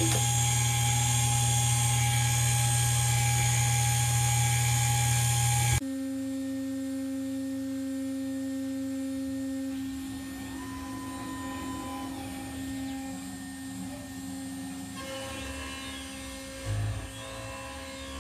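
Spindle of a 6040 CNC router running, a steady electric whine. About six seconds in the sound drops abruptly to a quieter, steady tone; a few seconds later a second, higher whine rises, holds for about two seconds and falls away, and there is a short thump near the end.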